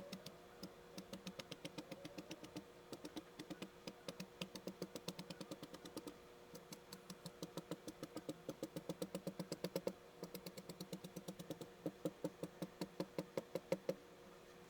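Kinetic sand being scratched with a tool, sped up four times, so the strokes come as a fast, even run of ticks, about six a second, with brief pauses and a stop near the end.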